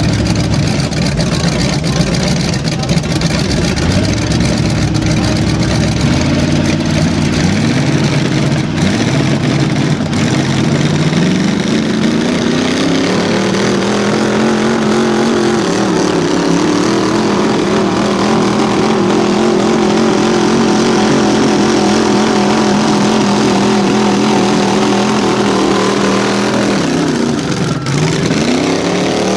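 Engines of two mud trucks at full throttle in a tug of war, a Ford Explorer with a stock 5.0 V8 and a Chevy mega truck, wheels spinning in the mud. The revs climb over the first dozen seconds, hold high and steady, then drop sharply and pick up again near the end.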